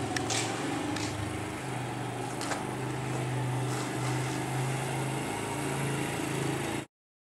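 A small step-through motorbike's single-cylinder engine running steadily at low speed as it is ridden slowly, with a few light clicks. The sound cuts off suddenly near the end.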